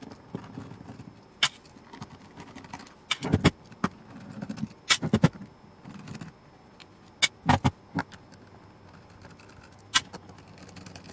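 A screwdriver undoing the screws of a composite fibreglass-plastic equipment case while the case is handled and turned over: scattered sharp clicks and knocks, some in quick pairs, with soft scraping between them.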